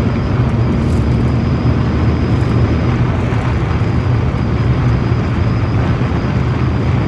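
Renault Clio 4 cabin at about 100 km/h: steady road and wind noise with a heavy low rumble, and a faint, steady, high-pitched air whistle above it. This is the whistling that sets in once the car passes 80–90 km/h.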